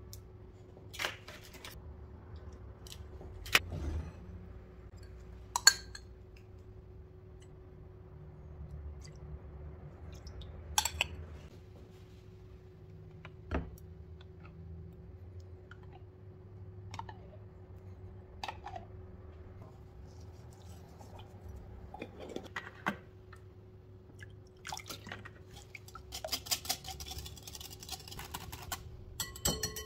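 Kitchen prep at a glass bowl: separate sharp clicks of eggshells and a spoon tapping the glass, then near the end a rapid clatter of a fork whisking egg yolks and yogurt in the glass bowl. A faint steady hum runs underneath.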